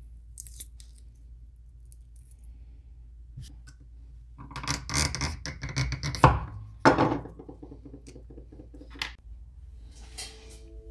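A small blade scraping and trimming a cast lure body: a rough scraping stretch about halfway through that ends in two sharp clicks, with lighter taps and scrapes before and after.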